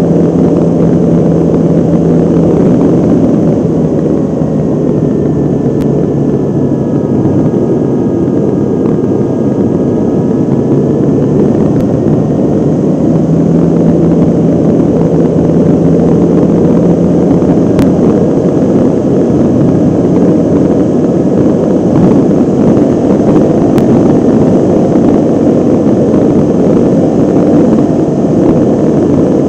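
Steady wind rush and propeller drone of a remote-control airplane in flight, heard from a camera on the plane itself. The drone's pitch sags and rises gently a couple of times.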